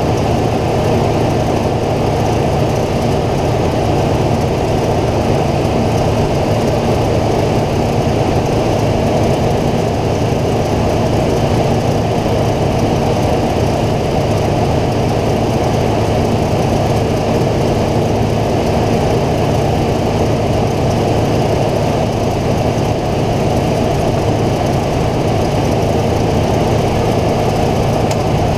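2005 Ford Ranger's engine idling steadily, heard up close from the open engine bay. The A/C compressor clutch is not yet engaging because the system is low on refrigerant and is being charged.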